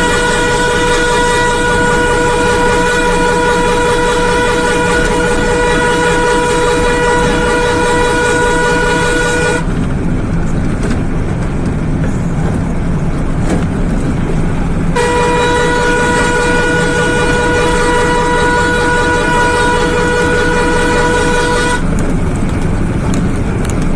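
Truck horn sounding one long steady note, stopping about ten seconds in, then sounding the same note again for about seven seconds, over the truck's continuous engine and road noise.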